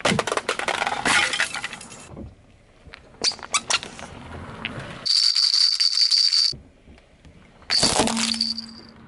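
A car tyre crushing a series of small objects: a plastic alarm clock cracking and crunching for about two seconds, then a few sharp cracks. A rubber duck squashed under the tyre gives a long, high squeak, and near the end a plastic toy crunches with a shorter squeak.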